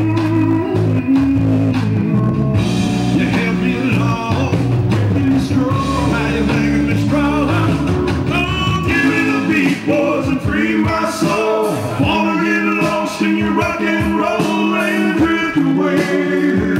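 Karaoke: a man singing into a microphone through a PA over a recorded blues-rock backing track. The deep bass drops out about halfway through.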